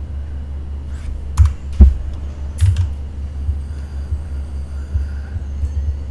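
A few sharp computer mouse and keyboard clicks, the loudest about a second and a half and two seconds in, over a steady low hum.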